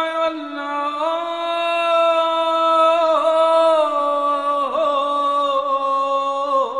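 A solo voice singing long held notes with small ornamental turns, the melody sinking slowly in pitch.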